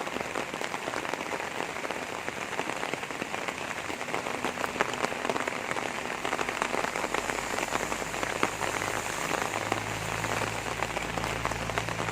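Steady rain falling and pattering on surfaces, thick with small drop hits. A low steady hum joins about eight seconds in.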